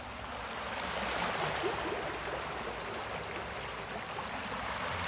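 Recorded sea waves: a steady wash of surf with gentle swells in level.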